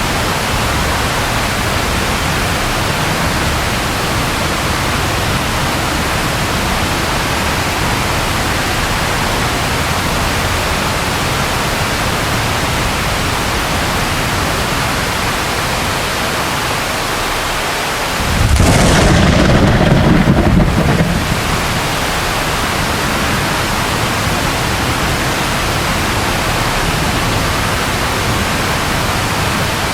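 Steady rain hiss, with a single thunder crash about two-thirds of the way through that starts suddenly, rumbles for two to three seconds and is louder than the rain.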